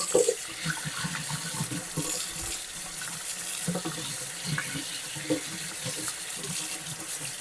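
Kitchen faucet running steadily, water splashing over carrots rubbed clean by hand under the stream and into a stainless steel colander in the sink, with a few small knocks.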